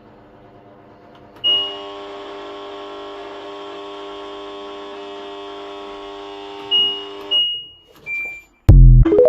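LG washing machine beeping as a button is pressed, then running with a steady hum for about six seconds before it stops. A few more short control-panel beeps follow, then a loud thump near the end.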